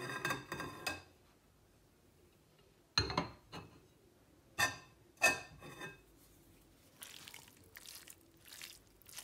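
Kitchenware clattering: sharp clinks and clanks of plates against a stainless steel pot, several with a short ringing tone, in bursts at the start, about three seconds in and around five seconds. Softer scraping and rustling follow near the end as cooked cabbage is scooped from the pot with a plastic serving spoon.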